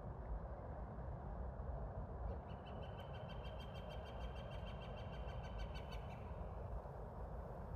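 A rapid, evenly pulsed high-pitched animal trill, about seven pulses a second, starting about two seconds in and lasting about four seconds, over a steady low outdoor hiss.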